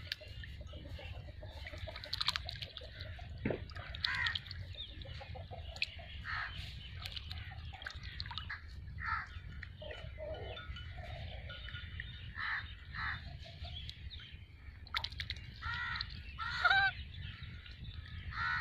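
White domestic geese honking, short calls repeated every second or so, over a steady low rumble.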